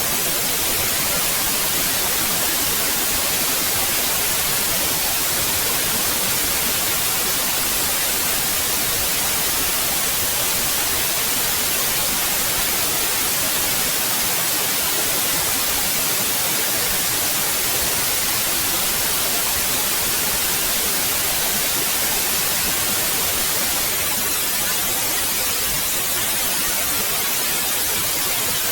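Steady white noise: an even, unchanging hiss spread across the whole range, brightest in the highs.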